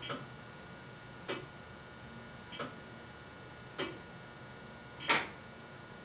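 Tower clock movement from 1928, still on its original mechanism, ticking steadily: a sharp tick about every one and a quarter seconds, five in all, the last one loudest.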